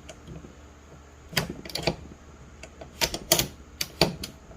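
Ratchet shifter from a 1979 Pontiac Trans Am automatic clicking as its lever is worked through the detents: about ten sharp clicks in clusters. The ratcheting action is now working.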